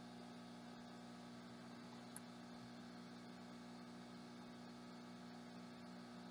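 Near silence: a faint, steady electrical hum, with one small tick about two seconds in.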